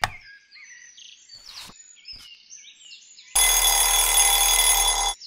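Birds chirping, then about three and a half seconds in a loud alarm clock bell rings steadily for nearly two seconds and cuts off suddenly. A sharp click comes at the very start.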